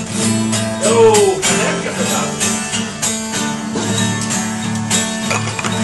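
Instrumental break in a sertanejo song: strummed acoustic guitar over a steady bass, with a brief sliding tone about a second in.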